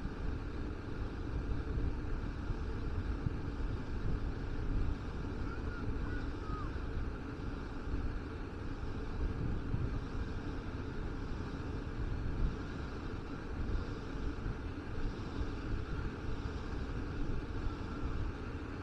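Wind rumbling unevenly on the microphone, over a steady background hiss of open-air ambience.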